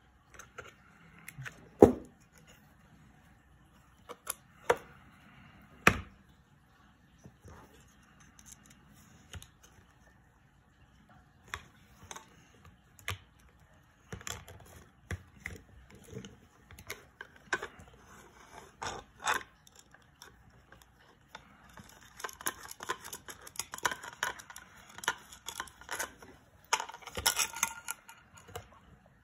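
Hands handling a stepper motor and small metal hardware on a tabletop: scattered sharp clicks and knocks of metal parts being picked up and set down, the loudest about two seconds in. Near the end comes a busier stretch of scraping and rustling as the motor and its sheet mount are moved about.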